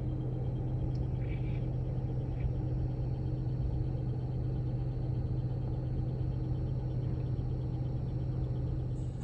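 A steady low mechanical hum with a constant rumble underneath.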